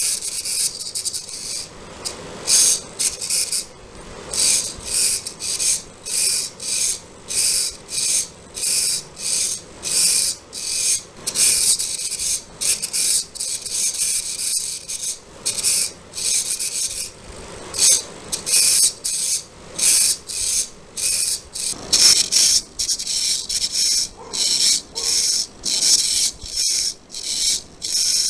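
Hobby servo driving a robot arm gripper, its motor and plastic gears whirring in short, high-pitched bursts, roughly one to two a second, as the gripper fingers open and close.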